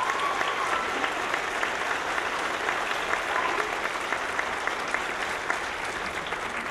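Theatre audience applauding at the end of a dance piece, dense steady clapping with a drawn-out whoop from the crowd in the first second.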